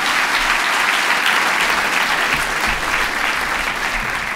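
Audience applauding, the clapping slowly fading toward the end.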